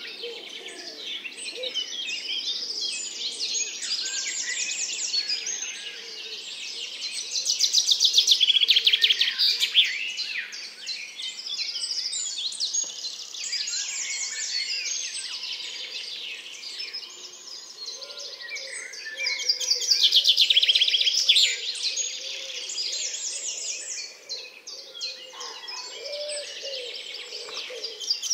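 Woodland birdsong: several birds chirping and trilling continuously, with louder bursts of rapid trills about a third of the way in and again past the middle.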